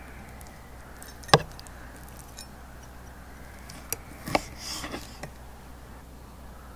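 Steak knife and fork cutting steak on a wooden board. There is a sharp click about a second in, the loudest sound, then several lighter clicks and a short scrape a little past the middle as the blade and tines meet the board.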